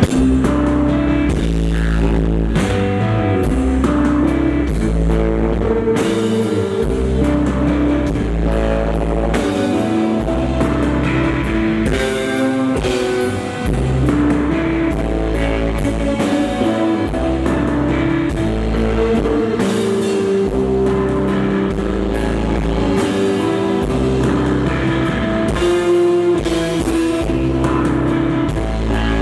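Rock band playing live: electric guitar lines over a heavy bass and a drum kit, loud and steady.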